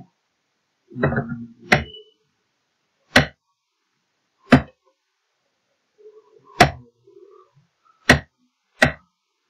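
Computer keyboard keys pressed one at a time while typing slowly: six sharp, separate clicks about a second or so apart, with a faint low murmur about a second in and again near the middle.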